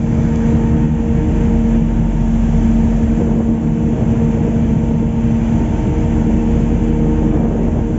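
A boat's engine running steadily at constant speed, a low hum with an unchanging pitch, over water and wind noise.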